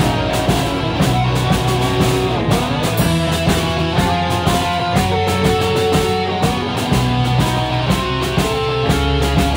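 Rock band music led by electric guitars, steady and loud.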